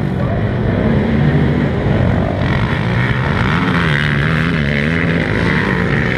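Several racing quad ATV engines running and revving together, their pitch wavering up and down as the riders work the throttle.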